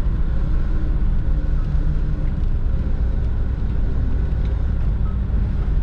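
Grain truck engine idling steadily.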